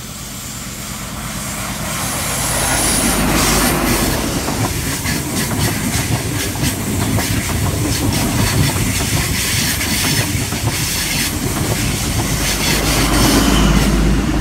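NSW TrainLink XPT diesel passenger train passing the platform without stopping. It grows louder over the first few seconds as it approaches, then the carriages rumble past with wheels clicking over the rail joints. A low rumble swells to its loudest near the end.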